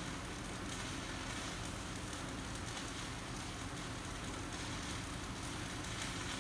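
Stick welding arc crackling and hissing steadily as a 7018 rod at about 100 amps lays a root pass on a steel hydraulic cylinder, with a steady low hum underneath.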